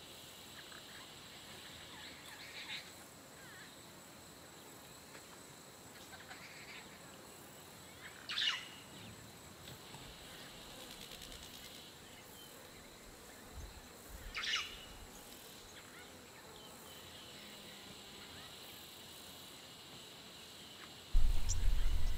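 Quiet natural ambience: a faint steady high insect drone, with two short bird calls about eight and fourteen seconds in. Near the end a loud low rumble starts suddenly.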